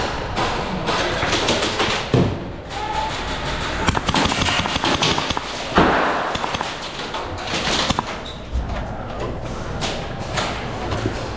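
Dull thuds and scattered sharp knocks and clicks over a steady rustling noise, with a louder knock about two seconds in and another just before six seconds.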